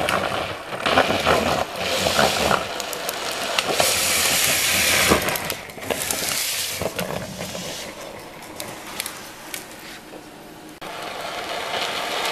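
Drift trike rolling fast downhill, its hard rear slider wheels skidding on asphalt: a rough hiss and scrape with scattered clicks and knocks. It swells as the trike passes close about four to five seconds in, then fades.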